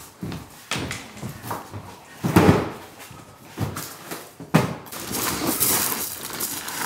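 Cardboard parcels being carried and set down on a wooden floor: a series of irregular knocks and thumps, the loudest about two and a half seconds in. From about five seconds in, a steady outdoor hiss takes over.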